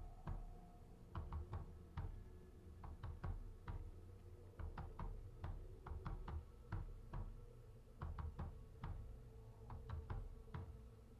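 Irregular soft knocks and clicks, several a second, over a faint steady drone.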